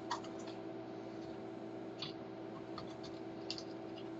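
Faint, scattered clicks and light scratches of small parts being handled on a workbench, a few of them, over a steady low electrical hum.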